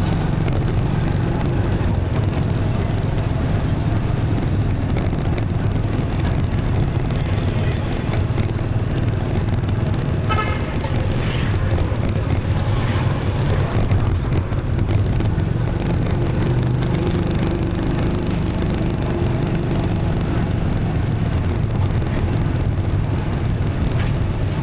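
Motorbike engine running steadily with road noise while riding in dense city traffic, other motorbikes and cars running alongside. About ten seconds in, a short horn beep sounds.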